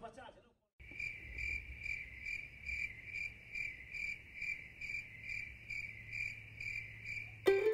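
Cricket chirping, evenly at about two chirps a second, starting and stopping abruptly, over a faint low hum. Music comes in right at the end.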